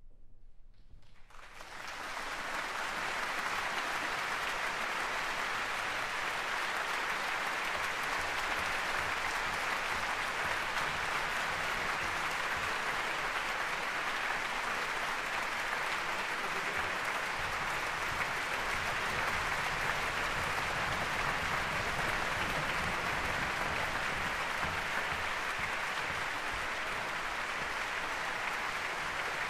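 Large audience in a concert hall applauding. It breaks out out of near silence about a second and a half in, swells within a second or so, and then holds steady.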